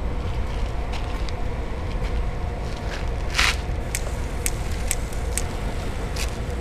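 A burning paper folder crackling over a steady low rumble, with a brief whooshing hiss about three and a half seconds in and a few sharp crackles after it.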